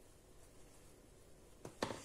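Quiet room tone, then two short sharp clicks close together about a second and a half in.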